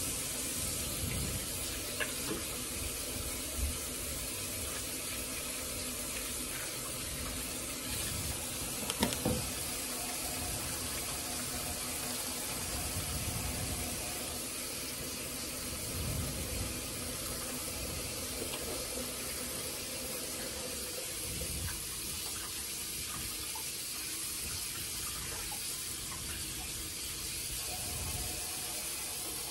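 Tap water running steadily into a sink, starting and stopping abruptly, with a few light knocks along the way.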